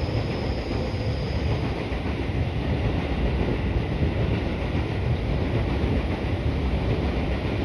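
Electric train running on the tracks: a steady rumble, with a faint high whine that fades out in the first couple of seconds.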